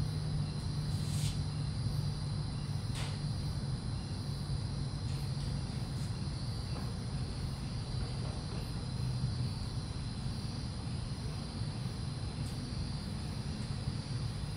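Crickets chirring steadily as a continuous high drone over a low steady hum, with two sharp clicks about one and three seconds in.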